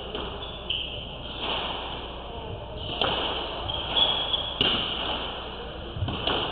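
Squash ball being hit back and forth in a rally: sharp cracks of racket and wall strikes about every second and a half, echoing in the court.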